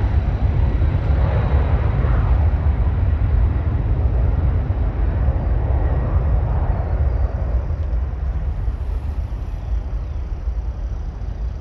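Jet noise from a Boeing C-17 Globemaster III's four Pratt & Whitney F117 turbofan engines as the transport climbs away after takeoff. It is a steady deep rumble that fades slowly, losing its higher part as the aircraft recedes.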